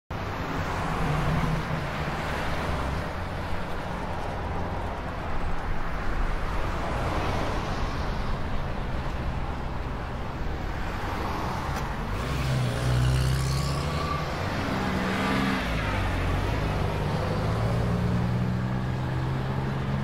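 Truck engine drone with tyre and wind noise, heard from inside the cab while cruising on a highway. The engine note shifts in pitch a few times in the second half.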